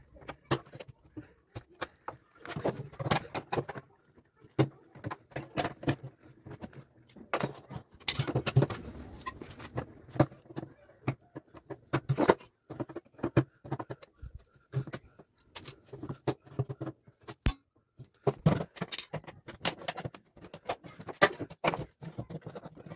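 Pliers and a claw hammer working old metal hardware off a wooden drawer: a run of irregular metallic clicks, clinks and scrapes, with knocks on the wood.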